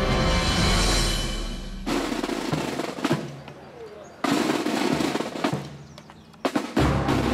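Military snare drums playing rolls, joined near the end by loud drum beats with a deep bass drum, as a marching drum corps approaches. Background music plays for the first two seconds.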